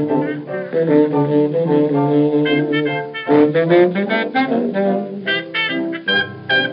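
Instrumental passage of a 1930 dance-band record played from a 78 rpm disc, led by saxophones with brass. Held chords give way to short, clipped notes about halfway through.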